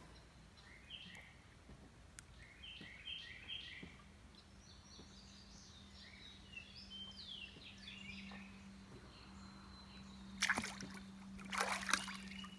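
Birds chirping in short repeated phrases over a faint steady low hum, then two loud sloshes of pool water near the end.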